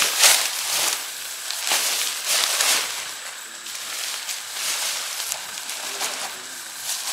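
Nylon fabric of a 3F UL Gear Lanshan 1 ultralight tent rustling and swishing in repeated bursts as it is lifted and shaken out, the loudest swish just after the start.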